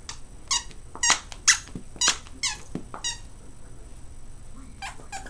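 A stuffing-free plush dog toy squeaking as the dog bites down on it. There are about six quick, high squeaks in the first three seconds, each dropping in pitch, then a pause and a few more near the end.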